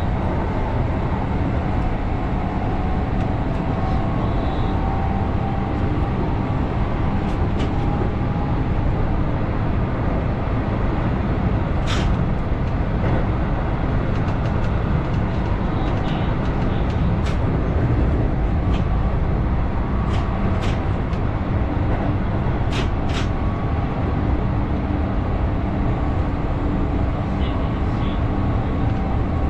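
Keihan 8000 series electric train running along the line, heard from the front car: a steady low rumble of wheels on rail, with a few sharp clicks along the way.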